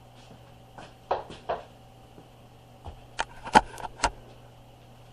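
A few short knocks and clatters in two clusters, about a second in and again around three to four seconds in, over a steady low hum.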